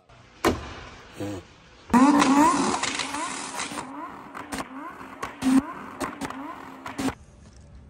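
Lamborghini Huracán's V10 engine starting: a sharp flare of revs about two seconds in that settles and fades toward a steady idle. A single knock about half a second in.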